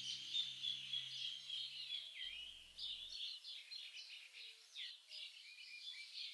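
Small songbirds chirping and twittering: many short calls and quick up-and-down glides. A low sustained tone fades out about two seconds in.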